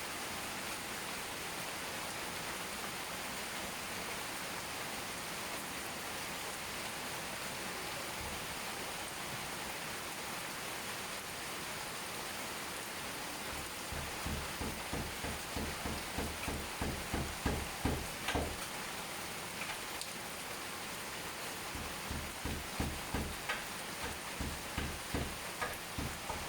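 Steady rain falling, an even hiss. Over the second half come two runs of soft, regular thumps, about two a second.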